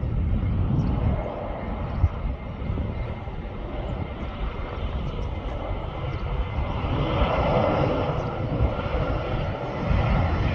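Jet engine noise from an Airsial Airbus A320: a steady rumble that swells noticeably about seven seconds in.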